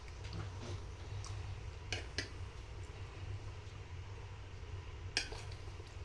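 Cutlery clinking against dishes during a meal: a few sharp clinks, two about two seconds in and the loudest about five seconds in, over a steady low hum.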